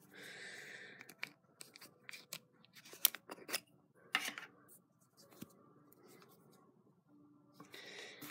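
Cotton-gloved hands handling a Canon FD 100mm f/2.8 camera lens: fabric rubbing on the barrel with scattered sharp clicks and taps, the loudest about three to four seconds in.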